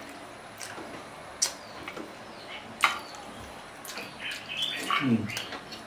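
Metal forks and spoons clicking against a clay pot and bowls while eating soup: a few separate sharp clicks, the loudest two about a second and a half apart. Near the end comes a short murmured voice sound, like a hummed 'mmm'.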